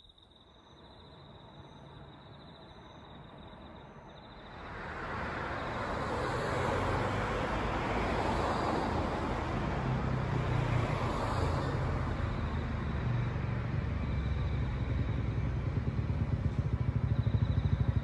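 A faint steady high whine, then about four seconds in vehicle noise swells up and stays loud, with a steady low engine hum underneath.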